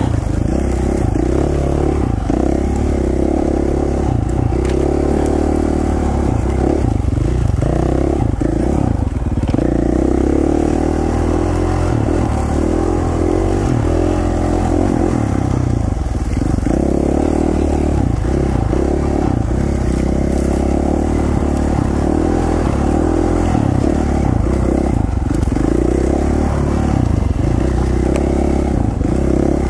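KTM 450 XC-F dirt bike's single-cylinder four-stroke engine running steadily under load on single track, its revs rising and falling with the throttle.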